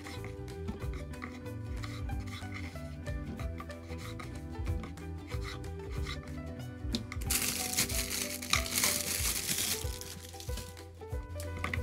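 Knife cutting eggplant on a wooden cutting board in a run of short cuts, then a plastic bag crinkling for a few seconds from about seven seconds in. Background music plays throughout.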